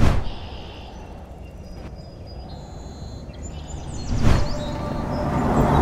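Small birds chirping over a steady outdoor background hum, with a brief swelling whoosh at the start and another about four seconds in.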